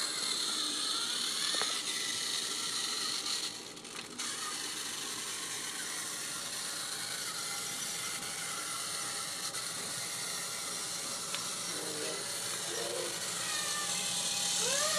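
Motorized toy train engine running along wooden track, its motor and gears whirring steadily, briefly quieter about four seconds in.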